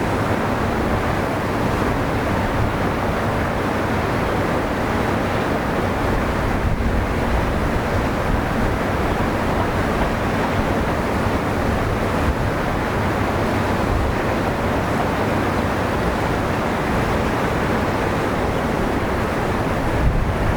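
Steady wash of sea surf on the shore, with wind rumbling on the microphone.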